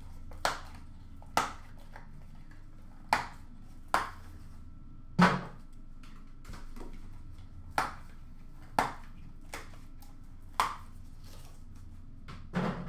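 Irregular sharp knocks and clacks, about ten of them, the loudest about five seconds in, from boxes and packaging being handled and set down on a counter, over a faint steady low hum.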